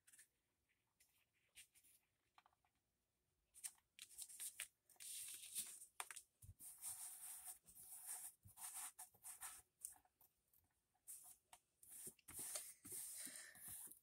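Faint paper and fabric rustling as fingers press and smooth a freshly glued collage piece onto a journaling card. A few light clicks at first, then intermittent rubbing from about four seconds in.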